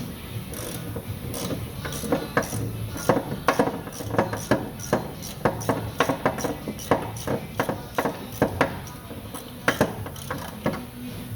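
Irregular metallic clicks and knocks of a socket wrench on long extensions working a very tight 17mm hex block heater plug loose from an engine block, a few sharp clicks each second.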